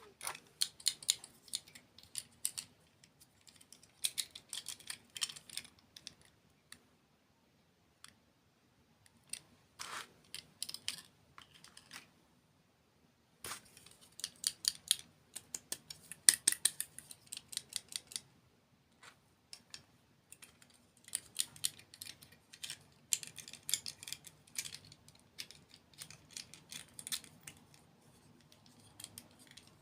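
Close-miked crunching and chewing of crunchy sweets: bursts of sharp crackling bites lasting a second or two, broken by short pauses.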